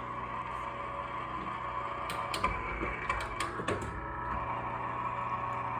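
Electric motor of an Ironrite ironer running with a steady hum as the roller turns. A cluster of sharp clicks and knocks comes about two to four seconds in.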